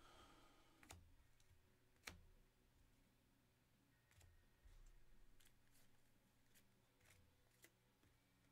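Near silence with a few faint, sharp clicks and taps of trading cards and their plastic sleeves and holders being handled and stacked.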